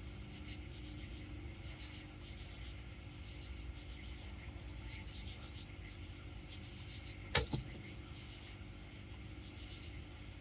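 Faint chirping of night insects over a low steady background noise, with a sharp knock, followed closely by two smaller ones, a little past the middle.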